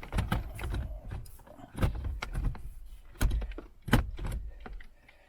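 Plastic clicks, knocks and rustling from handling a car radio's wiring connectors and head unit in the dashboard, with a few sharp clicks standing out.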